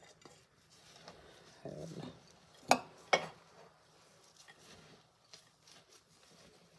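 Gloved hand turning crumbled oat-flour chechebsa over in a ceramic bowl, a faint dry rustling as the pieces are coated with oil. Two sharp knocks come about half a second apart near the middle.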